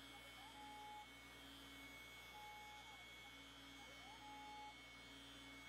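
Near silence with a faint steady hum. Several times, a faint tone rises and then holds level.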